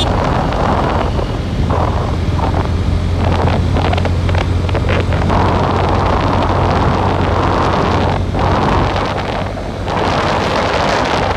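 Wind buffeting the microphone of a moving motorcycle, over the steady hum of its engine, easing briefly near the end.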